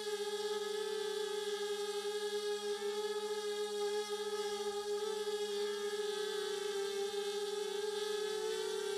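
Hobbyking FPV250 quadcopter's four RCX 1804-2400 brushless motors and propellers running in flight, a steady hum whose pitch wavers slightly as the throttle shifts, recorded by the camera on board.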